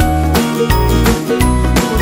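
Background music with a steady beat, a bass line and pitched melody notes.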